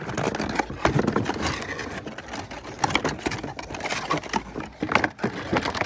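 Cardboard boxes being handled and opened by hand: flaps rustling and scraping, with irregular small knocks.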